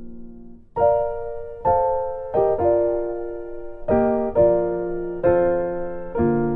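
Background piano music: a held chord fades out, then soft chords are struck about once a second, each ringing and fading away.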